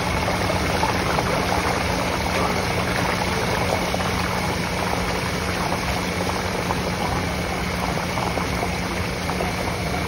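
Potato chips deep-frying in a large wok of hot oil, a dense steady sizzle and crackle as fresh raw slices drop in from the slicer. A steady low hum runs underneath.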